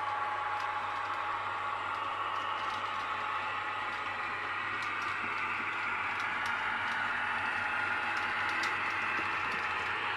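H0-scale model freight train running along the layout track: a steady whine from the passing model locomotives' motors fades over the first few seconds, while the wheels of a long rake of open wagons rolling on the rails make a rushing rattle with faint clicks that grows toward the end.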